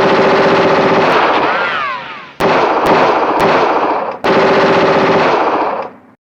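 Vintage machine gun firing three long bursts of rapid automatic fire, each about two seconds, one right after another. A falling whine runs through the end of the first burst.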